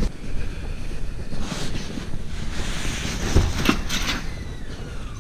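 Wind buffeting the microphone in blowing snow, with a few sharp knocks about three and a half seconds in.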